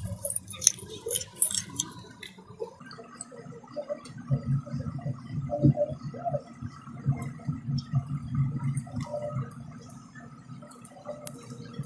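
Plastic screw caps on small bottles twisted open with sharp crackling clicks, then people gulping and swallowing mango drink straight from the plastic bottles. Another cap clicks open late on.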